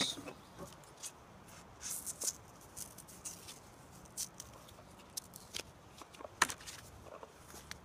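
Scattered light clicks and scrapes of a credit-card-size DMT diamond whetstone and its plastic sleeve being handled on a plastic workbench, with a sharper click about six and a half seconds in.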